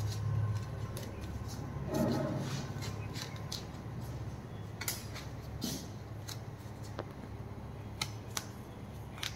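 Strips of adhesive tape being handled, peeled and pressed onto a dog's foreleg, giving scattered crisp clicks and crackles, with a rustle about two seconds in. A low steady hum runs underneath.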